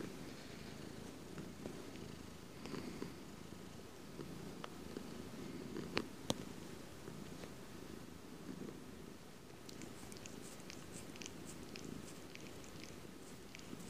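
Domestic cat purring steadily, right up close, the purr swelling and easing with each breath. Two sharp clicks come about six seconds in, and light, rapid ticking runs through the last few seconds.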